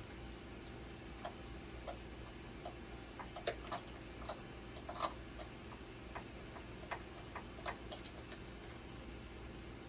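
Irregular small clicks and taps of hand tools and screws being worked at the blood pump housing of a dialysis machine, busiest in the middle, over a steady low hum.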